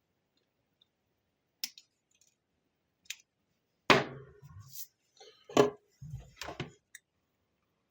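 Flush wire cutters snipping the excess component leads on a small circuit board, a handful of sharp, separate snips a second or so apart, with light knocks of the board and tools being handled.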